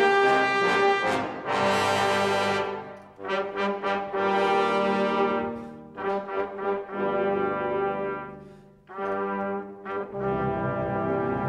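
Orchestral ballet music led by brass, played in swelling phrases with short dips between them.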